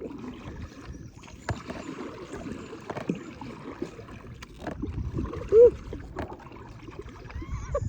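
Kayak paddling: the paddle dipping and splashing through the water, with occasional knocks every second or so. A brief vocal sound is the loudest moment about five and a half seconds in.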